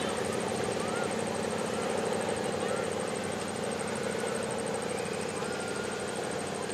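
Diesel locomotive of an approaching ordinary passenger train, running with a steady engine drone that eases slightly. A few short bird chirps come over it.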